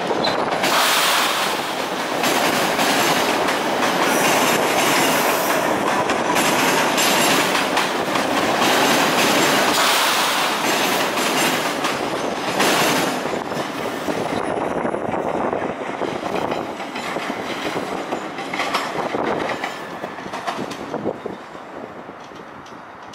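MBTA Red Line subway train rolling past over yard switches and rail joints, its wheels clattering in a steady run of clicks. The noise holds loud for a while, then fades as the train moves away.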